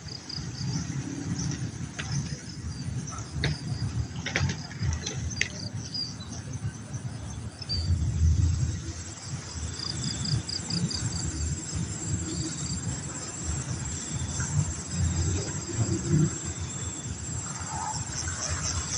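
Insects chirping in short repeated pulses over an uneven low rumble, with a few sharp clicks in the first few seconds.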